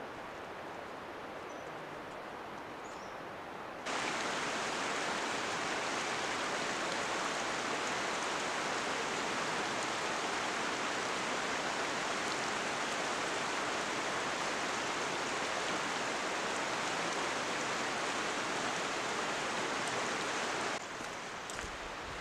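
Steady rush of a shallow stream running over cobbles. It starts abruptly about four seconds in and cuts off just before the end, with a fainter, even outdoor hiss either side.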